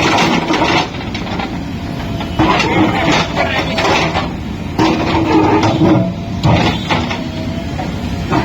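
JCB 3DX backhoe loader's diesel engine running under load, with repeated loud bursts of noise as the machine works.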